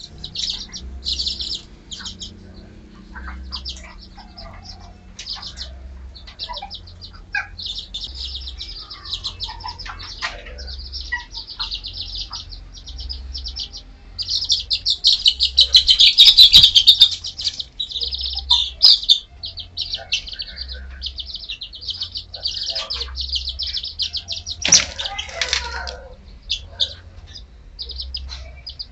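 Young Serama bantam chicks peeping continuously in rapid, high-pitched trains, loudest in a busy stretch around the middle. A single thump sounds about three-quarters of the way through.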